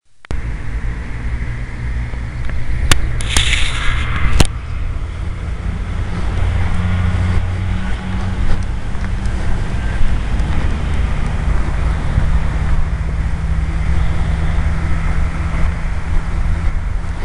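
Steady low rumble of wind buffeting a small camera's microphone, with a few sharp clicks and a short burst of hiss about three seconds in.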